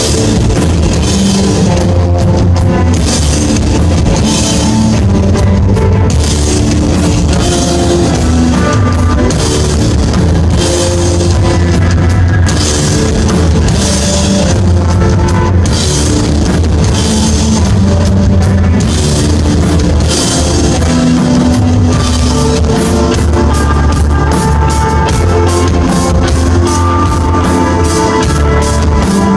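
Rock band playing live: drum kit with regular cymbal crashes over a heavy bass line and guitar, with no vocals. The cymbal strokes come faster in the last few seconds.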